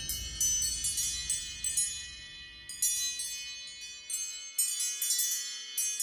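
iPhone ringtone of bright, bell-like chime notes, struck a couple of times a second, each ringing on. A low rumble underneath fades out about two thirds of the way through.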